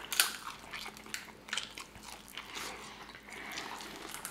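Close-miked eating sounds: biting into corn on the cob and chewing boiled seafood, with irregular sharp mouth clicks, the loudest just after the start.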